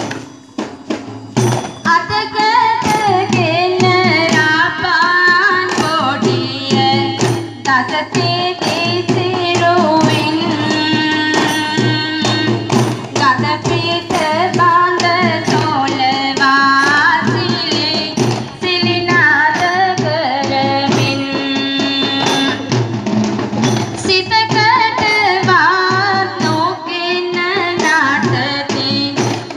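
South Asian dance song playing: a sung melody that bends and ornaments its notes over a steady hand-drum beat. The singing comes in about two seconds in after a brief lull.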